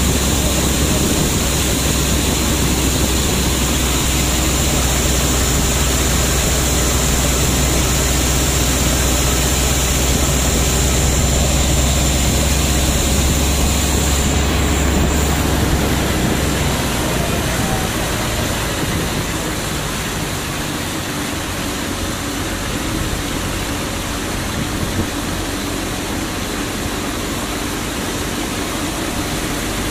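Motorbike ride: the engine's low rumble under a steady rush of wind on the microphone, easing off a little past halfway.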